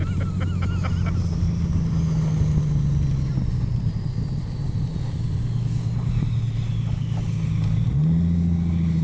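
Jeep engine running, its note stepping up about a second in, easing back down around the middle, and climbing sharply again near the end as it speeds up.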